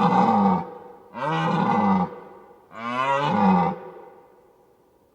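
Deer calling with three loud, pitched bellows of about a second each, a short gap between them. The calls stop a little under four seconds in.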